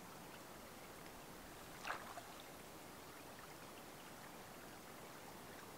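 Faint lapping of shallow lake water around hands holding a brook trout for release, with one short splash about two seconds in.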